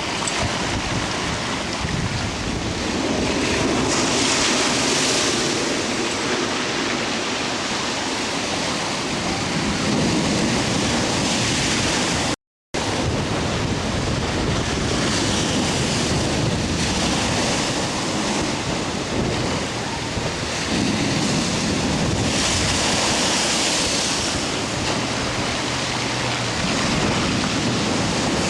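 Hurricane Sandy's storm surf crashing against a sea wall in surges every few seconds, with strong wind buffeting the microphone. The sound cuts out for an instant near the middle.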